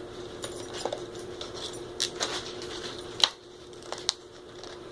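Stiff plastic blister packaging being handled and pried at, with scattered crinkles and a few sharp clicks and snaps, the loudest about three seconds in.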